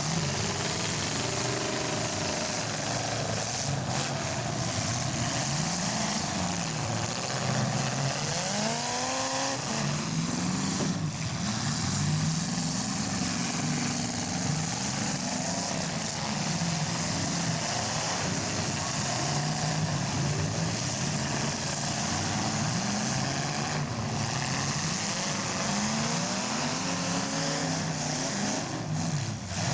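Several demolition derby cars' engines running hard and revving, their pitch sweeping up and down again and again over a continuous din.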